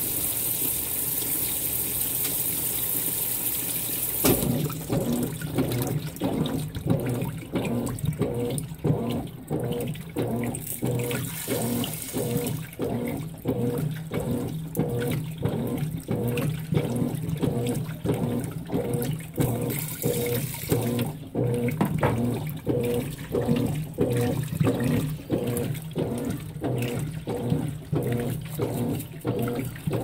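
Consul 16 kg top-load washing machine filling with water in a steady hiss; about four seconds in, the agitator starts and churns the load of jeans with a rhythmic back-and-forth sloshing over a low motor hum. The hiss of inflowing water comes back briefly about two-thirds of the way through.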